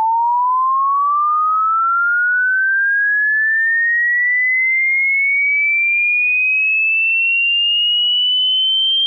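Synthesized sine-wave tone for tinnitus relief: a single pure tone rising smoothly and steadily in pitch, from a middling pitch to a high, whistle-like one.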